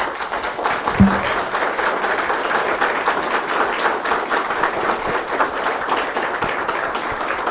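A small group of people applauding steadily, with a single thump about a second in.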